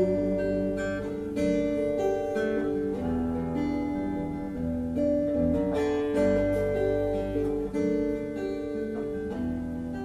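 Acoustic guitar played live: an instrumental passage of picked and strummed chords that change every second or so.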